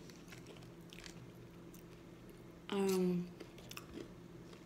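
Soft chewing and small clicks of food being handled, with one short hummed "mm" from the eater about three seconds in, slightly falling in pitch.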